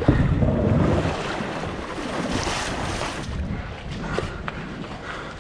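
Sea water washing and sloshing around a kayak in a narrow rocky gully, loudest in the first second and then settling to a steadier wash, with wind buffeting the microphone.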